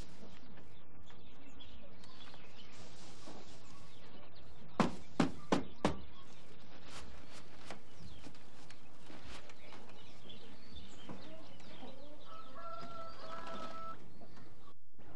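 Farmyard sounds with chickens clucking and calling, including one drawn-out, broken chicken call near the end. Four sharp knocks come in quick succession about five seconds in.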